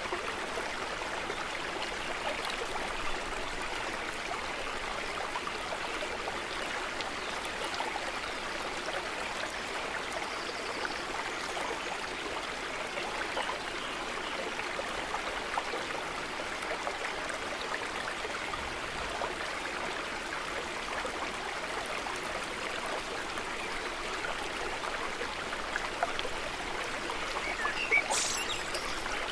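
Small stream running over stones, a steady babbling of water, with a brief high chirp near the end.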